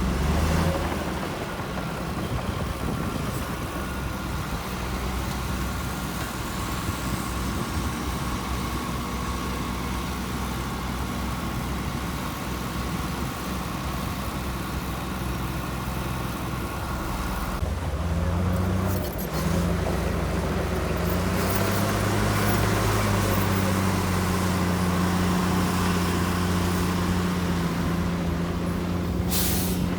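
Heavy diesel engine of earthmoving machinery running steadily, then revving up and working harder a little past halfway, its pitch rising and staying raised.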